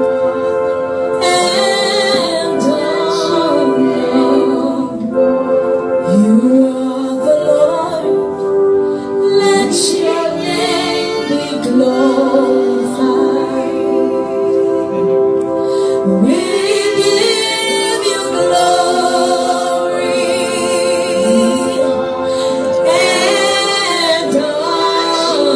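Gospel worship music: female voices singing over steady held chords.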